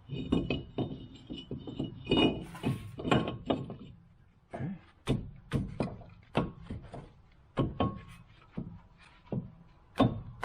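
A run of irregular knocks and clunks from hand tools and parts being handled during reassembly of a car's front suspension, coming about two a second in the second half.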